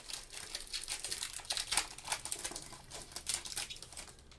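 Foil wrapper of a Panini Flux trading-card pack crinkling and crackling in gloved hands as it is peeled open and the cards are slid out. A dense, irregular run of quick crackles.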